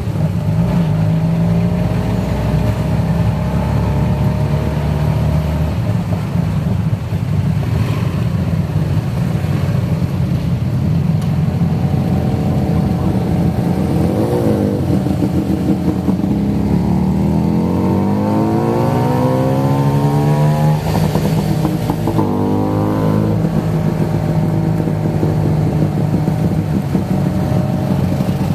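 Tuk-tuk engine running under way in traffic, heard from the open passenger cab, rising in pitch as it speeds up a little past the middle.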